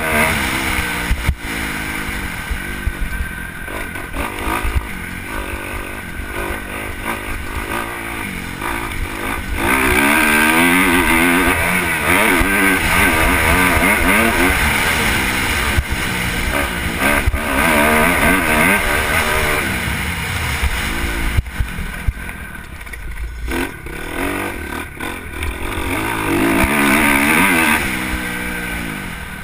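Motocross dirt bike engine revving up and down, its pitch climbing and dropping again and again as the throttle opens and closes, with a few sharp knocks along the way.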